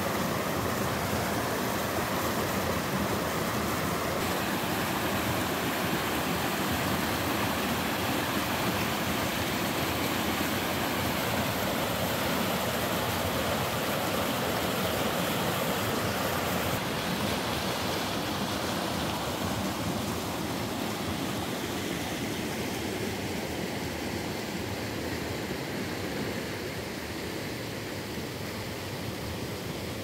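Mountain stream rushing and cascading over boulders in small rapids, a steady water noise. It gets a little quieter about halfway through and again near the end.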